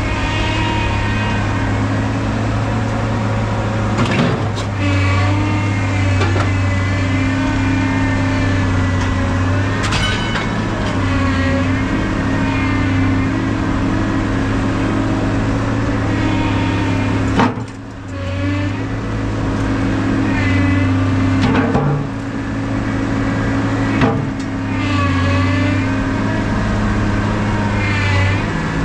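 Engine running steadily with a whine that rises and falls every few seconds, as under repeated load, and scattered knocks and clanks.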